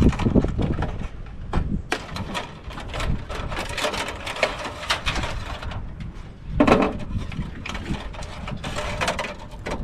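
Metal scrap being handled and pulled apart: a steady clatter of knocks, clicks and rattles, with louder bangs just after the start and about two-thirds of the way through.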